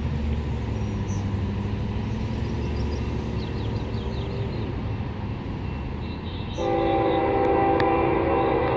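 Freight train horn sounding about six and a half seconds in, a chord of several notes held to the end, over a steady low rumble from the approaching train.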